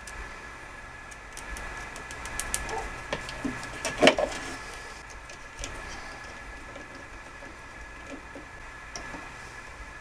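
Small metallic clicks and scrapes of hand tools on an old wall switch and its metal box. The clicks come in a quick string, and there is one louder knock about four seconds in.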